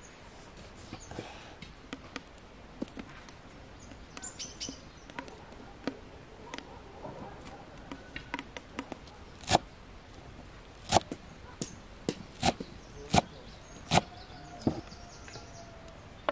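Knife chopping on a wooden board: a few faint taps at first, then from about ten seconds in a run of loud, sharp single chops, irregularly spaced about a second apart. Faint bird chirps in the background.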